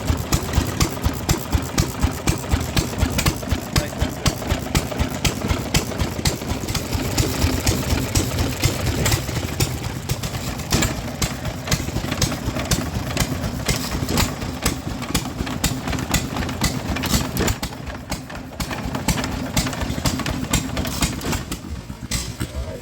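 Antique engine running at idle with a regular beat of about three exhaust pulses a second.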